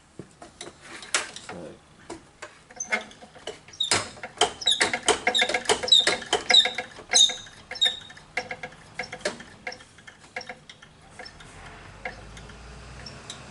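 A cold start injector being handled on a leak-test rig: a run of irregular sharp clicks and rattles with short high squeaks, busiest between about four and eight seconds in, thinning out towards the end.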